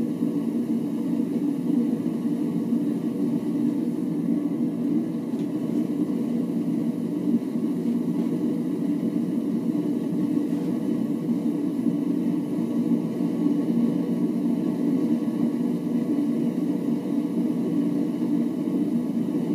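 Homemade propane forge's burner running at full heat: a steady, unbroken rush of burning gas, low in pitch.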